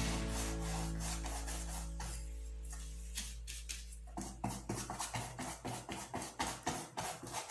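Paintbrush scrubbing and dabbing acrylic paint onto a canvas in short, quick strokes, several a second. Soft background music plays under it and stops about halfway through.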